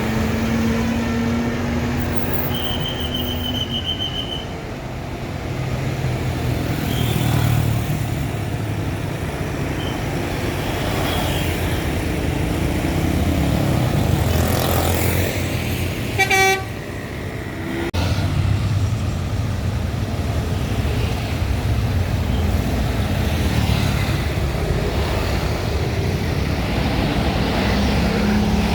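Large buses with their engines running steadily, and short horn toots over them: a held tone a few seconds in, and one loud, brief blast about sixteen seconds in.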